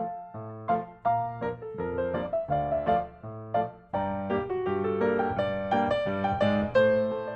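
Background piano music: struck notes in chords and short runs, each note ringing and fading.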